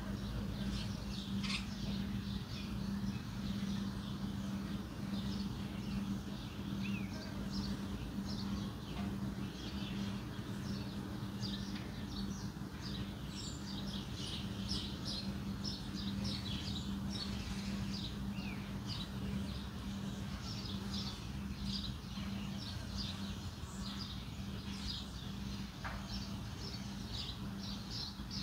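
Birds chirping in many quick, short, high calls, over a steady low hum and rumble.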